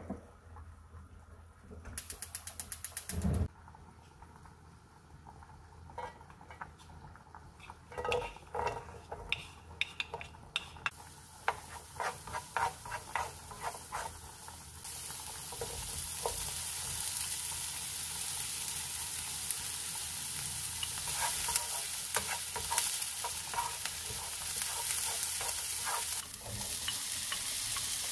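Rapid, evenly spaced ticking of a gas hob's igniter for about a second and a half, then a wooden spatula tapping and scraping diced onions around a nonstick frying pan. Oil sizzles under the onions and settles into a steady, louder frying hiss about halfway through.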